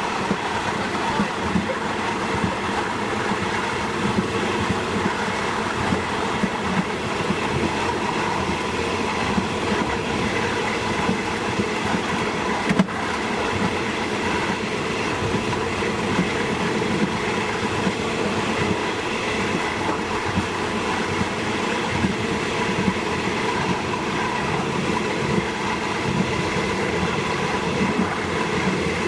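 A State Railway of Thailand train running steadily along the track: a continuous rumble of wheels on rail with a steady hum and light, frequent clicks from the rail joints. A single sharper click comes about thirteen seconds in.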